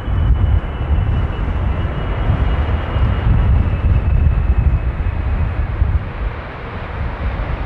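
Jet airliner engines passing: a heavy low rumble with a faint high whine that slowly falls in pitch.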